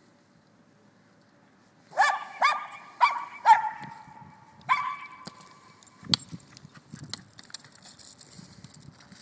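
Jack Russell terrier barking: four sharp barks in quick succession starting about two seconds in, then one more a second later. A knock and softer scuffling follow.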